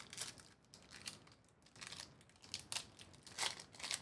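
Trading card pack wrappers crinkling and tearing in short, irregular bursts as packs are ripped open.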